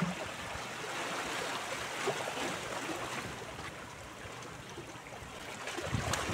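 Sea water lapping and washing against shore rocks in a steady rush, with a sharp knock near the end.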